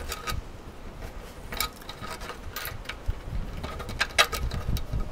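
Small clicks and rattles of a roll-top camp table's slats and frame as a corner pin is worked into its hole. They come in a few scattered bursts, the loudest about four seconds in.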